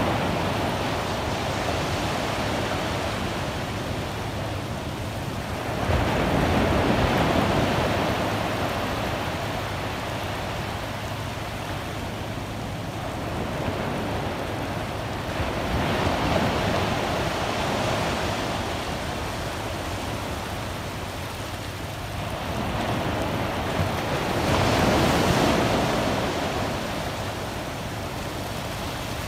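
Ocean surf breaking and washing up a flat sandy beach, a steady rush that swells louder three times, about every nine or ten seconds, as each wave comes in.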